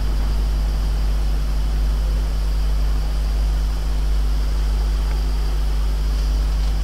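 A steady low electrical hum with even hiss over it, the background noise of the recording. It holds constant throughout, with no other sound.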